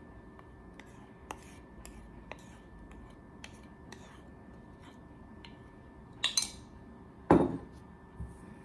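Kitchenware handled on a tabletop: faint scattered ticks, then a sharp clink about six seconds in and a louder knock a second later, like a dish or utensil being set down.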